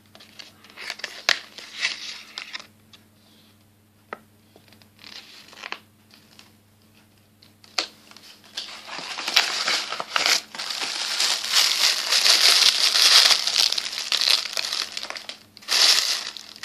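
Small packaging bag being handled and opened, crinkling: a few short crinkles in the first half, then steady, louder crinkling through the second half.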